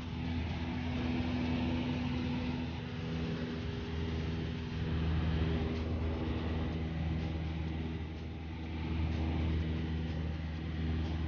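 Light high-wing propeller plane's engine and propeller droning steadily, heard from inside the cabin: a low hum with a hiss of air over it.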